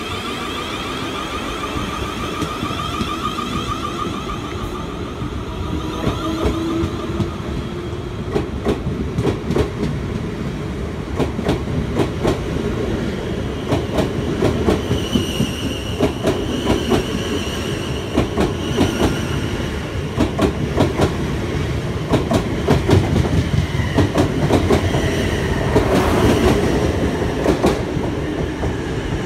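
Electric multiple-unit passenger train moving past close by. A whine from its traction motors comes first, then a long, rapid run of wheel clicks over rail joints and points as the coaches go by, with a higher whine joining about halfway.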